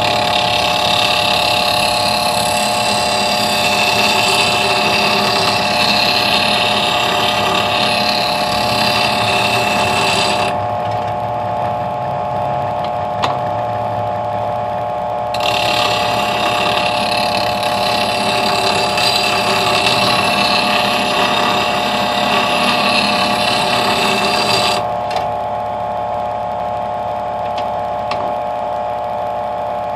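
Variable-speed bench grinder running at low speed with a steady motor whine, while a wood lathe tool held in a sharpening jig is rocked against the wheel. The hiss of steel being ground comes in two spells of about ten seconds each, with a pause of about five seconds between them and another near the end, where only the wheel is heard spinning.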